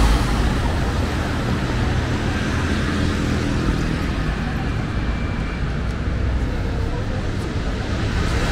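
City street ambience: a steady wash of road traffic noise from passing vehicles.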